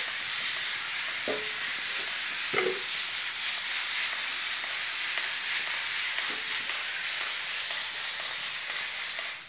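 A steady hiss of noise that cuts off suddenly near the end, with a few brief faint squeaks.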